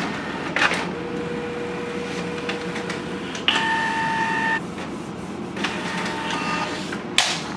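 Canon inkjet printer printing a page, its feed and print-head motors whirring as the sheet comes out onto the tray. A higher whine comes in briefly about midway, and there are sharp clicks near the start and near the end.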